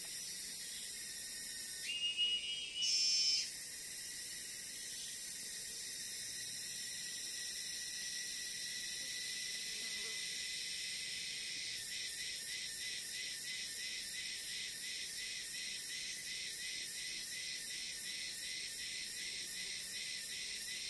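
Forest insects chirring in a steady, high-pitched chorus. About two seconds in, a short louder call breaks in for a second or so. From about halfway through, a pulsing insect call joins at roughly two pulses a second.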